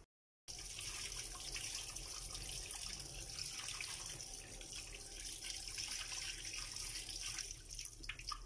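Kitchen tap running, its stream splashing over a hand and into a stainless steel sink; the water sound starts about half a second in and runs steadily, with a few light knocks near the end.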